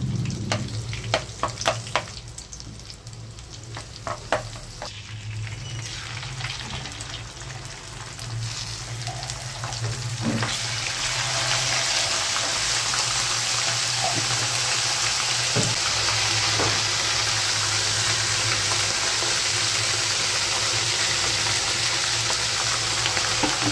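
Green chillies and curry leaves sizzling in hot oil in a kadai, with a steel spoon clinking against the pan several times in the first few seconds. About ten seconds in the frying gets much louder and fuller as paste goes into the oil and is stirred, and keeps up evenly, with a low hum underneath.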